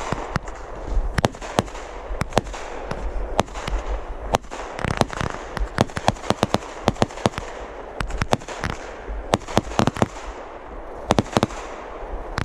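Black Cat 'Collateral Damage' 500-gram, 49-shot fireworks cake firing: a fast, uneven run of sharp reports, several a second, over a continuous hiss.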